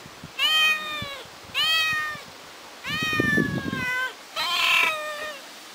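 Ginger kitten meowing four times, each a loud cry that falls in pitch, about a second apart: crying and calling out at being left alone.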